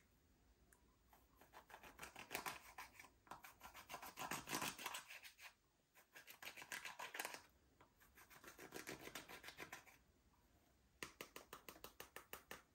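Slime being worked by hand, giving several bursts of rapid sticky clicks and crackles with short pauses between. Near the end comes a quick, even run of popping clicks.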